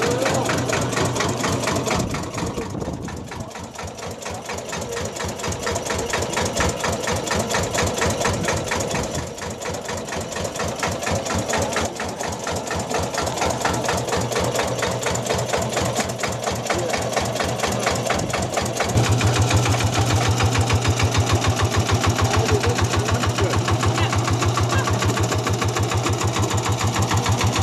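Engine of a miniature Lanz Bulldog model tractor running with a rapid, even firing beat. About two-thirds of the way through it becomes louder and deeper.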